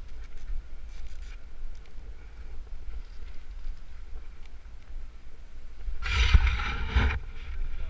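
Wind and handling noise on a body-worn camera during a rappel: a steady low rumble with faint clicks of gear, and about six seconds in a louder rough rush lasting about a second.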